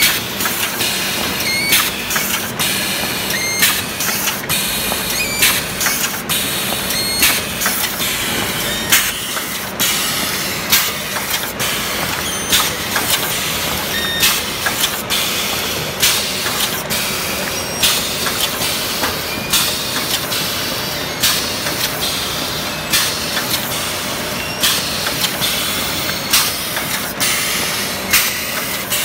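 Hydraulic paper plate making machine running through its cycle: sharp metallic clacks roughly once a second over a steady mechanical running noise.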